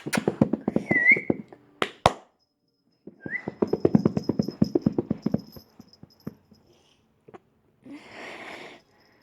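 Dog growling in two long bouts of rapid pulses while it attacks, with a sharp click about two seconds in.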